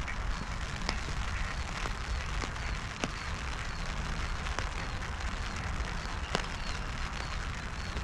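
Rain falling on an open umbrella held right over the microphone: a steady patter with scattered sharper drop hits.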